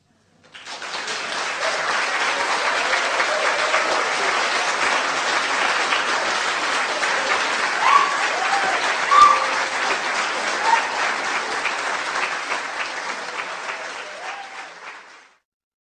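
A lecture-hall audience applauding, building up within the first second and holding steady, with a few short cries from the crowd in the middle; the clapping fades and then cuts off near the end.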